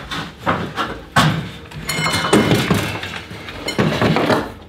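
A string of knocks, thumps and clinks from a person climbing down a ladder out of an attic opening and moving off, with a brief metallic ringing about two seconds in.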